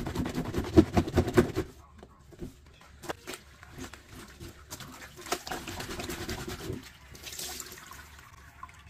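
A wet, soapy terry-cloth rag scrubbed by hand against a ridged washboard: quick rubbing strokes, loudest in the first couple of seconds, then quieter handling with a few clicks and another short spell of scrubbing past the middle.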